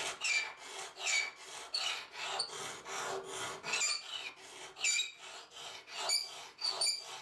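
Triangular ceramic Sharpmaker sharpening rod rasped back and forth in a pocket-knife blade's root to grind a sharpening choil: repeated rubbing strokes, roughly one and a half a second, many ending in a short high squeak.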